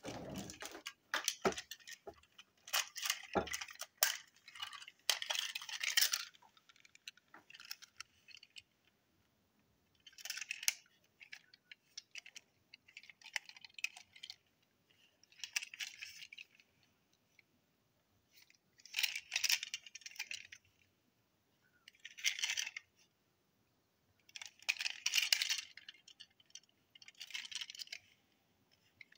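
Toy train wagons being handled and turned over in the hands, their wheels and bodies clicking and rattling. Rapid clicks run for the first several seconds, then short bursts of rattling and scraping come every two to three seconds.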